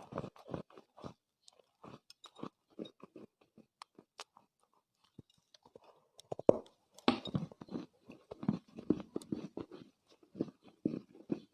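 Chewing of soft Chinese loess (dried clay earth): a run of small, irregular crunches, sparse through the middle and coming thick and fast in the last few seconds.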